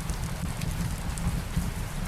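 Steady rain mixed with a crackling wood fire: a low rumble under an even hiss, with small sharp crackles scattered through it.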